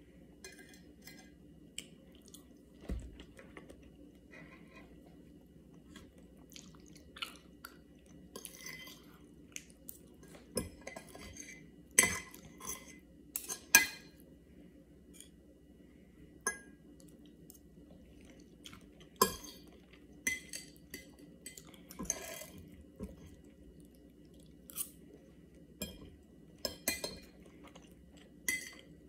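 Knife and fork clinking and scraping on a plate while a fried egg is cut and eaten, with scattered sharp clinks, the loudest about 12 and 14 seconds in, and quiet chewing between.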